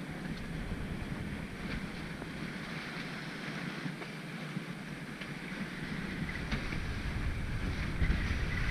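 Strong wind buffeting the camera microphone over the rush and splash of steep chop along the hull of a small sailing proa beating upwind in 20-25 knot wind. A steady noise with a few faint ticks, growing louder near the end.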